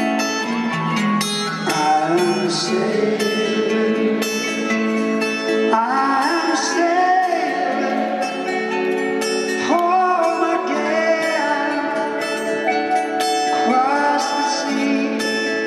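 Live band playing a slow ballad with a lead vocal, heard through the arena sound system from the audience.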